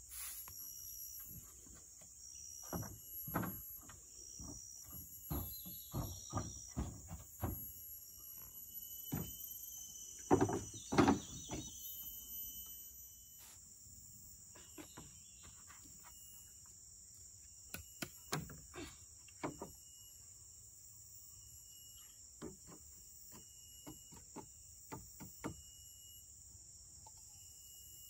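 Steady high insect chorus with a short repeating chirp over it, and scattered knocks and thumps of things being handled on a wooden floor, loudest about ten seconds in.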